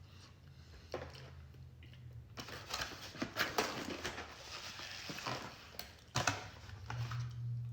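Mealtime handling sounds: scattered clicks and a busy stretch of clatter and rustling from cutlery and takeout food containers, with chewing, over a low steady hum.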